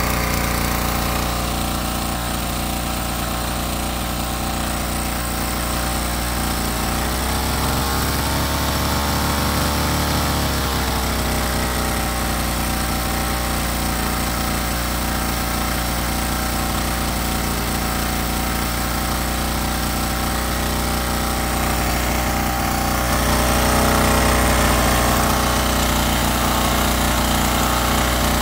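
Petrol string-trimmer engine, a small two-stroke, running steadily while it drives a 12 V car alternator as a homemade generator. Its revs rise about seven seconds in and settle back down about four seconds later.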